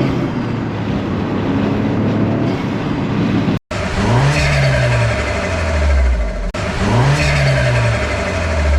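Toyota GR Corolla's turbocharged three-cylinder engine running steadily, then, after an abrupt cut, revved twice, its pitch rising and falling each time.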